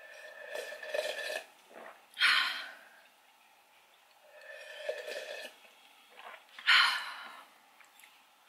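A person blowing a runny nose twice. Each blow is a drawn-out nasal honk followed by a sharp, loud rush of air, the second blow near the end.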